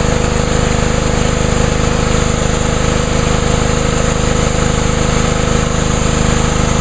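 Honda GCV198 engine driving a Ryobi 3100 psi pressure washer pump under load, with the trigger held open and a steady loud hiss of the high-pressure water jet over the engine's hum. The pump is building pressure and spraying normally, a sign that it came through the winter undamaged.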